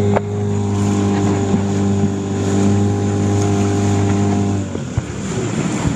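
Small tiller-steered outboard motor on an inflatable coach boat running at a steady speed, its drone cutting off abruptly near the end and leaving wind and water noise.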